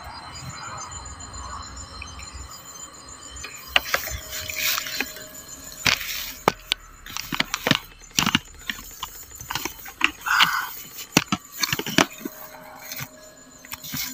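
Crickets trilling steadily. From about four seconds in, leaves rustling and twigs cracking and snapping in quick, irregular bursts as someone pushes through dense undergrowth on foot.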